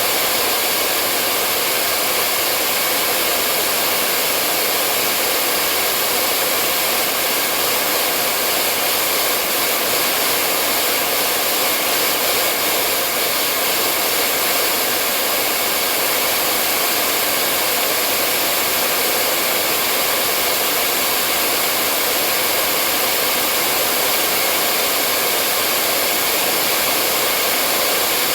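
Hair dryer running steadily: a constant, even rush of blown air with a faint motor hum, unchanging in pitch and loudness.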